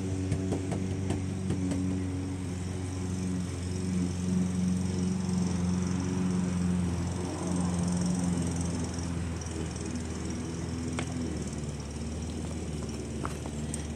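A motor running steadily with a low, even drone, and a few faint clicks near the end.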